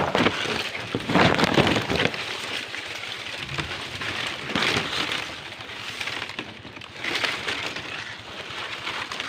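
Dry palm fronds and twigs rustling and crackling as someone climbs and pushes through them, in a few uneven bursts, loudest in the first two seconds.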